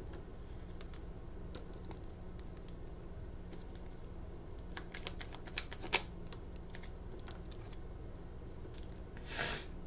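Tarot cards being handled: scattered light clicks and taps of cards and long fingernails against the deck, with a sharper click about six seconds in and a short swish of a card sliding near the end. A low steady hum runs underneath.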